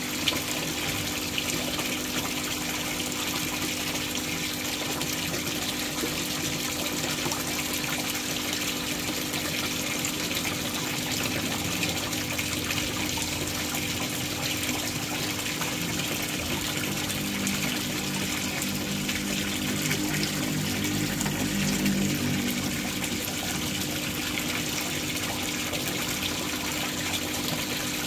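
Water pouring and splashing steadily into a koi pond, a constant rush of falling water with a faint steady hum underneath. A low rumble swells and fades about two-thirds of the way through.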